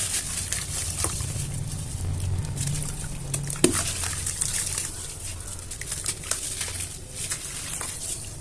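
Chunks of black cement and sand crumbling and crunching, a run of small crisp crackles and patters with a sharper crack about three and a half seconds in.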